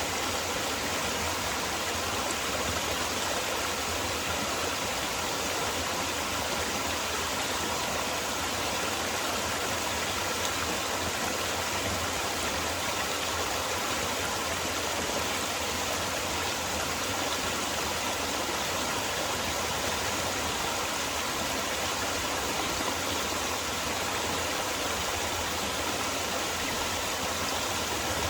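Forest valley stream water flowing over rocks with a steady, unbroken rushing.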